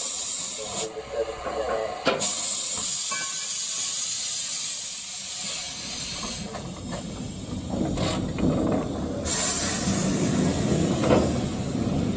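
Steam hissing from a 15-inch-gauge steam tank locomotive standing on a turntable; the hiss stops and starts a few times. A low rumble joins about halfway in as the turntable swings the engine round.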